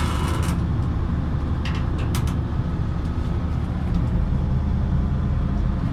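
Standby generator engine running steadily: a low, even drone while the plant is on generator power during a mains outage. Two faint clicks come about two seconds in.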